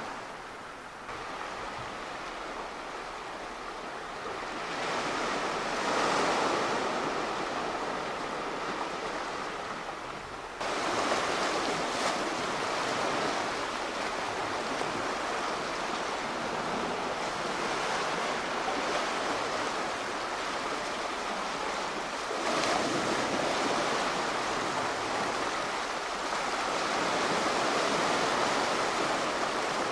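Sea waves breaking and washing on the shore in a steady rush of surf that swells every several seconds, with a sudden step up in loudness about ten seconds in.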